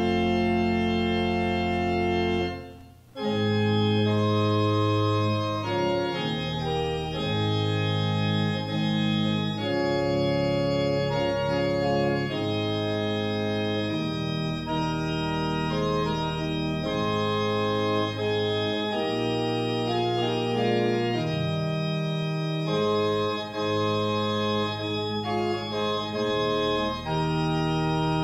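Organ playing sustained chords that change every second or so, with a brief break between phrases about three seconds in.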